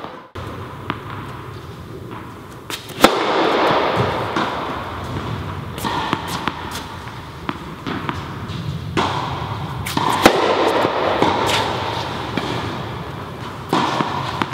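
Tennis serves on an indoor court: two sharp racket-on-ball hits, each ringing on in the hall's echo, with lighter ball bounces on the court between them.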